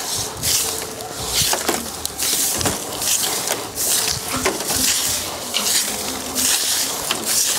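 Traditional long-stalked broom (okoba) swept across a bare dirt yard: a steady run of short, scratchy swishes, roughly two strokes a second.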